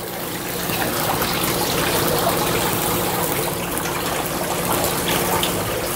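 Ribeye steaks sizzling on a grill grate over hot charcoal, a steady hiss with a few small pops from the fat.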